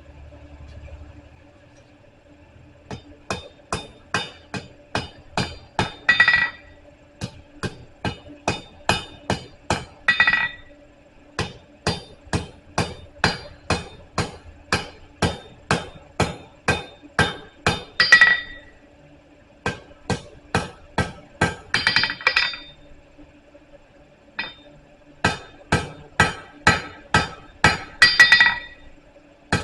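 Blacksmith's hammer striking hot steel on an anvil, drawing out a taper. The blows come about two a second in runs of several seconds with short pauses between, and several runs end in a quick flurry of brighter, ringing strikes. A faint steady hum runs underneath.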